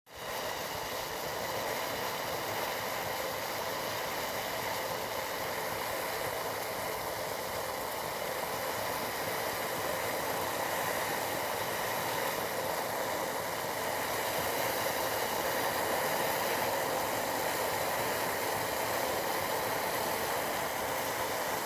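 Tea boiling: a steady, even hiss with little bass.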